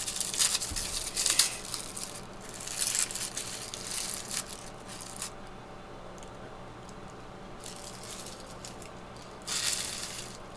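Thin paper wrapping crinkling and tearing in short bursts for about five seconds, then a quieter stretch and one more brief rustle near the end.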